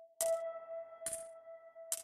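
Electronic ambient music from ZynAddSubFX software synthesizers, including a muffled bell patch: a steady held tone with bell-like notes entering just after the start, and a short crisp percussive hit about every 0.85 s, three times.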